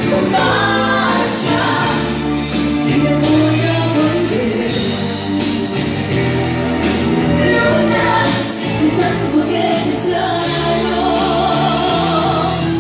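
A woman singing a Spanish-language pop song live into a handheld microphone over amplified backing music with a steady drum beat.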